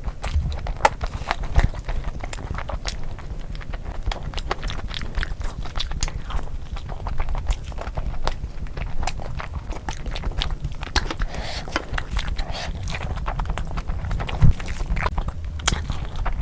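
Close-miked eating: a person chewing and smacking a mouthful of curry and rice, with dense irregular wet clicks over a steady low rumble. One sharper knock comes near the end.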